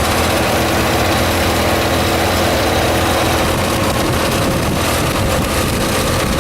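1984 Corvette's stock 5.7-litre V8 idling steadily.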